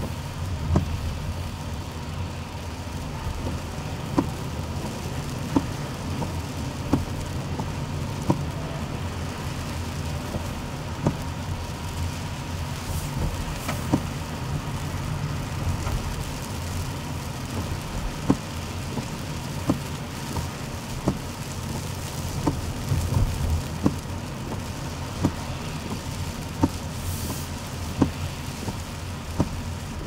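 Rain on a car, heard from inside the cabin, over the low, steady rumble of the car driving on a wet road. A short, sharp click comes regularly about every second and a half.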